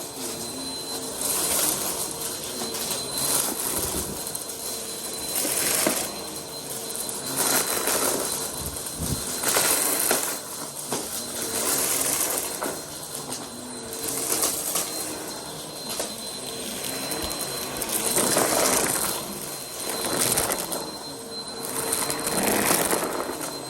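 Vacuum cleaner running with a steady whine, pushed quickly back and forth so that its rushing sound swells and drops every second or two.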